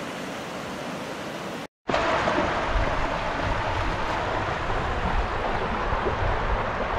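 Kern River water running over rocks and shallows: a steady rush that cuts out briefly just under two seconds in, then returns louder with wind rumbling on the microphone.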